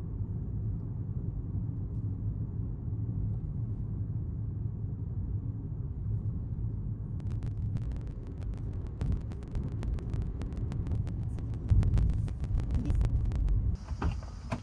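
Road and engine rumble heard inside a moving car's cabin, low and steady. About halfway through, a stream of faint, irregular sharp clicks joins it, with a few louder low surges. Just before the end the sound cuts off abruptly to a thin steady hiss.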